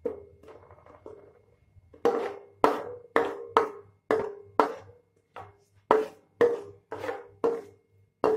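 Steel ladle scraping and knocking against a stainless-steel kadai while stirring melted sugar for chikki. The pan rings briefly after each knock. The knocks are soft for the first couple of seconds, then louder at about two a second.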